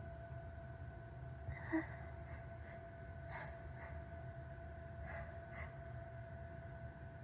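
A person's short sniffs and gasping breaths through a tickly nose, about seven in all, without a sneeze. A steady faint hum lies underneath.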